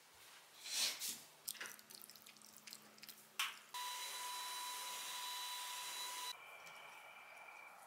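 Cordless stick vacuum cleaner switches on suddenly about four seconds in and runs with a steady high whine. A couple of seconds later it drops to a quieter hum at a different pitch. Before it come a few short clicks from eating pasta with chopsticks from a ceramic bowl.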